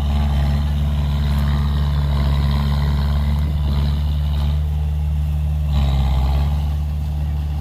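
Heavy diesel engine running steadily under load, with a brief rise about six seconds in.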